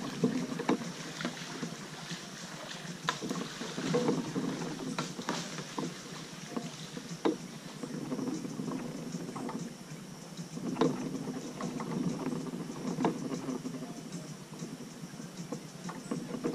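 Kayak being paddled: the paddle dipping and splashing in the water every couple of seconds, with scattered sharp knocks, over a steady hiss.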